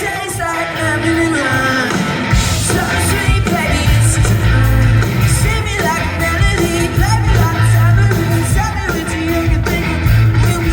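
Live rock band playing a song: lead vocal singing over drums, bass and electric guitar, loud and steady.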